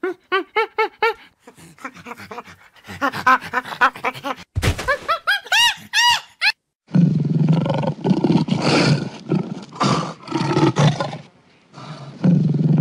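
Animal sound effects: a chimpanzee's quick calls rising and falling in pitch, building to longer arching screeches, then, from about seven seconds in, a lion roaring with deep, rough growls, with a short break near the end.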